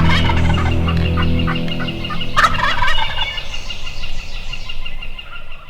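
Wild turkey gobbler gobbling, with background music that tapers off near the end.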